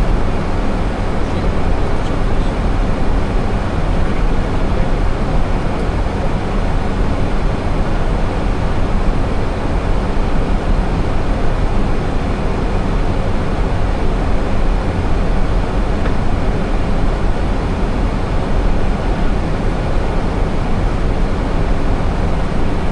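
Steady rumbling cockpit noise of an Airbus A320 in flight: airflow and engine noise heard from inside the flight deck, even throughout.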